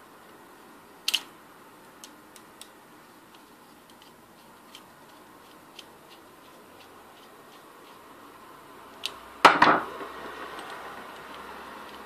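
Small metal parts of an aviation-style connector being handled and screwed together, giving scattered light clicks, one sharp click about a second in and a louder knock with a short ring about nine and a half seconds in.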